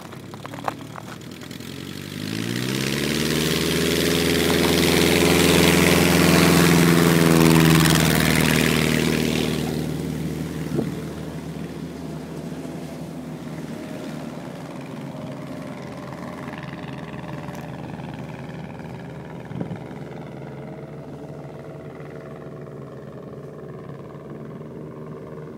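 A 1946 Aeronca Champ ski-plane's small flat-four engine opening up to full throttle for takeoff about two seconds in, its pitch rising, then loud with a rushing noise as the plane accelerates and lifts off. From about ten seconds in it fades to a steady drone as the plane climbs away, its pitch slowly falling.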